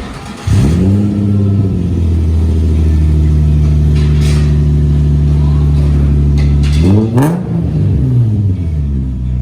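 Infiniti G35's 3.5-litre V6 running through a Z1 exhaust with a straight pipe welded in place of the muffler. About half a second in it jumps in, flares up in pitch and settles to a steady idle, and about seven seconds in there is one short throttle blip. The exhaust has just been re-hung on three hangers to stop it rattling against the cross member.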